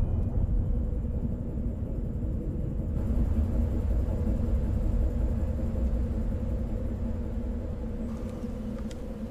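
Low, steady rumble with a faint droning hum: ambient film sound design. It eases off slightly near the end, with a couple of faint ticks.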